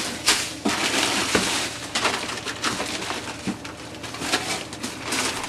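Frozen food packages being rummaged through in a deep freezer: a steady crunching and rustling broken by many quick knocks and clicks as the packages are shoved against each other.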